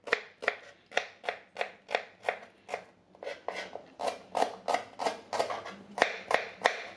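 Kitchen knife slicing shallots on a plastic cutting board: a steady run of sharp chops, about three to four a second, with a short pause about three seconds in.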